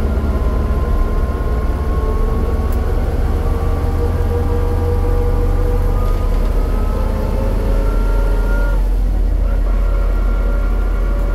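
Running noise of the vehicle carrying the camera: a whine that slowly rises in pitch, breaks off about nine seconds in and comes back, over a heavy low wind rumble on the microphone.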